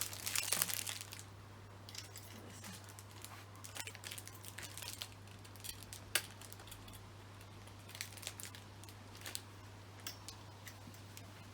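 Packaging crinkling for about the first second, then scattered light clicks and rustles of handling, with one sharper click about six seconds in. A steady low hum runs underneath.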